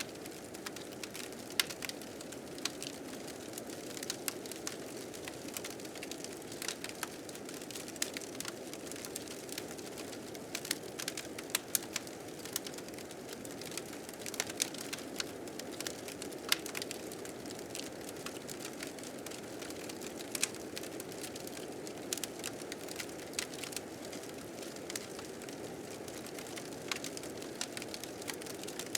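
A fire crackling, with frequent sharp pops, over a steady low rush of blizzard wind.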